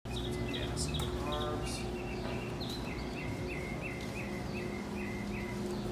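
Small birds chirping, one giving a run of short repeated chirps about three a second, over a steady low background hum.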